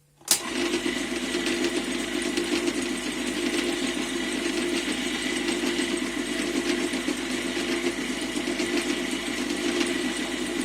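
Lathe switched on with a sharp click right at the start, then running steadily, a loud machine drone with a thin steady whine over it.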